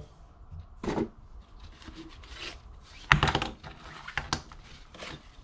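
Hands handling unboxed accessories: rustling of a soft black pouch and a cable, with a few knocks as things are set down, the loudest cluster about three seconds in.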